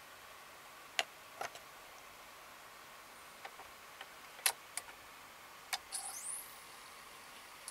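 Light clicks and knocks of a CD being set onto the spindle of an open Sony CD player with a KSS-151A optical pickup. The loudest click comes just after the middle. Near the end a brief rising whine and whirr follow as the disc starts to spin up.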